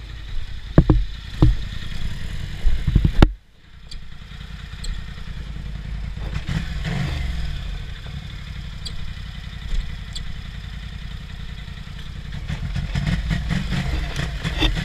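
ATV engine running through mud, a steady low drone, with several sharp clunks in the first three seconds. The sound drops out briefly about three seconds in, then the engine note carries on and builds slightly near the end.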